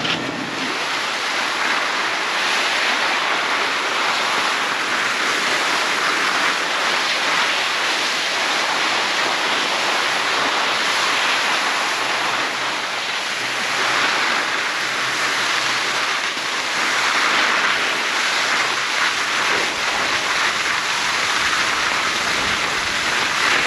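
Steady rushing hiss of skis sliding downhill over packed snow, with air rushing past the camera as it goes.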